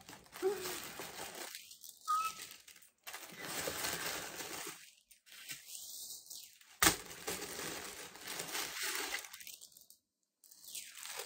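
Wrapping paper rustling, crinkling and tearing as a package is unwrapped by hand, in spells broken by short silences, with one sharp crack about seven seconds in.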